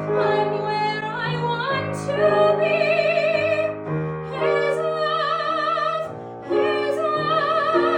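A classically styled singing voice holds long notes with wide vibrato over piano accompaniment, in three sung phrases.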